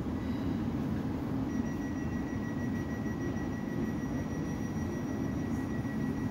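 South Western Railway Class 450 Desiro electric multiple unit standing at the platform with its doors open, its onboard equipment giving a steady low hum. A faint, steady high-pitched tone joins it about a second and a half in.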